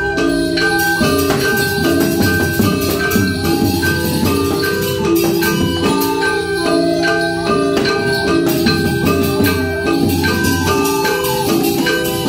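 Balinese gamelan music for a Barong dance: bronze mallet percussion plays quick, ringing notes over steady held tones, with a small hand gong and a bamboo flute among the players.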